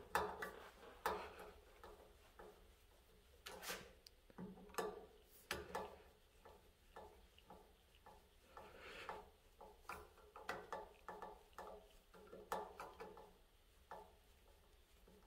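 Faint, irregular clicks and short scrapes of a hand screwdriver turning small screws into a 3D-printed plastic hour-meter mount, with handling of the small parts between turns.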